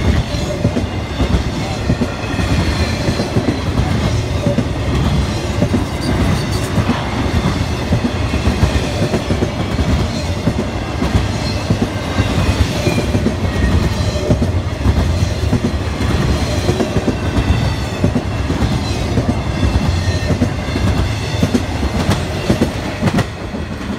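An empty intermodal freight train's cars rolling past, with a steady clickety-clack of wheels and the rattle of empty flatcars and well cars. The sound drops a little just before the end.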